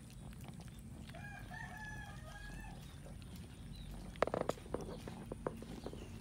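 Cats chewing cooked rice, a run of small wet clicks, with a rooster crowing once faintly for about two seconds, starting about a second in. A short burst of louder clicks comes a little after four seconds.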